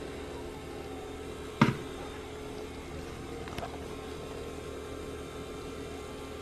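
Steady kitchen hum with a single sharp knock about one and a half seconds in and a fainter click a couple of seconds later, as seasoning is shaken from a cardboard spice container over chicken in a plastic bowl.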